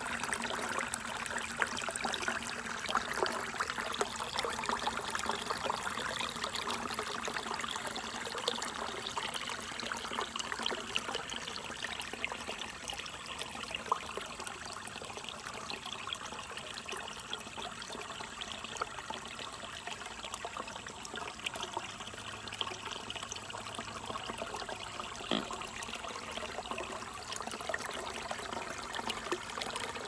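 Creek water trickling and splashing over rocks, with a small cascade pouring into a shallow pool. A steady rush made of many small splashes.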